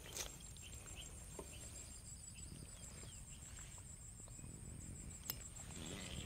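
Insects chirring steadily in a rapid, high, pulsing trill, with faint scattered clicks and rustles and one sharp click about five seconds in.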